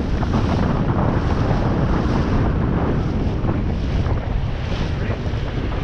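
Steady wind buffeting the microphone over the rush of water from a boat running on the lake.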